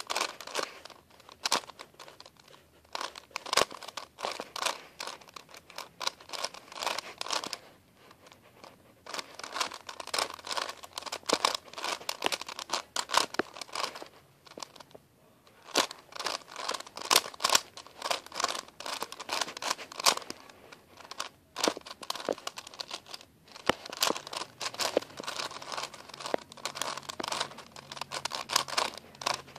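A 4x4x4 Rubik's cube having its layers turned in quick runs: dense plastic clicking and rattling, with a few short pauses between sequences of moves, as the cube is finished with 3x3 methods.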